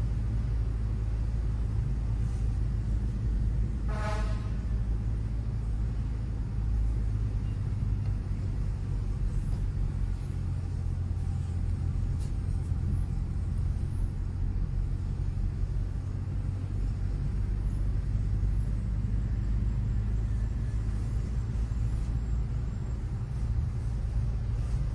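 Steady low rumble of a car's engine and tyres heard from inside the cabin while driving. About four seconds in there is one brief pitched tone.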